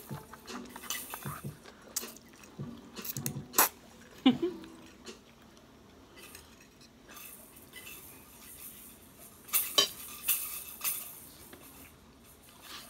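Metal forks clinking and scraping against plates during a meal. There are scattered sharp clinks, loudest around four seconds in and again around ten seconds.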